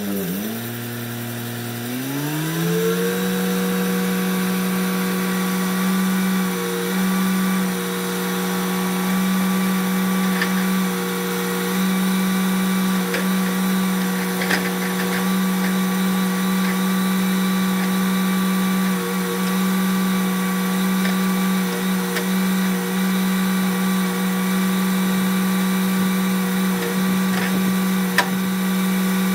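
Engine of a Clarke 350 XP portable band sawmill running. It rises in pitch over the first few seconds and then holds steady while the log autoloader lifts a log onto the mill bed, with a few light clicks.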